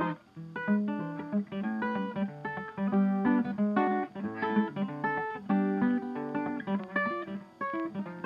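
Background music: a quick run of plucked acoustic guitar notes.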